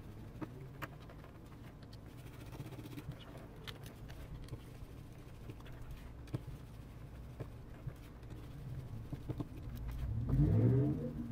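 Small scattered clicks and ticks of a precision screwdriver working out the tiny screws of a smartphone's internal plastic plates, over a faint low hum. Near the end, a brief louder sound rising in pitch.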